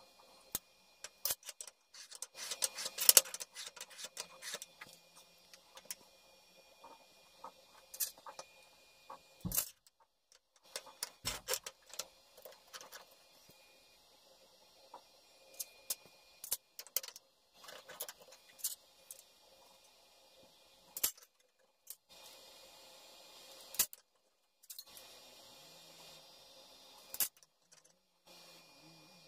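Flat steel bar pieces and a steel rule handled on a steel table, giving scattered sharp metallic clicks and clinks. There is a dense run of clinks about two to three seconds in and a couple of duller knocks around ten seconds.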